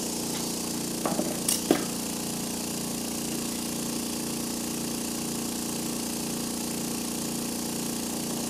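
Small powered vacuum pump running steadily, sucking diesel up through the fuel filter's bleeder to prime the filter. A few brief clinks of handling about a second in.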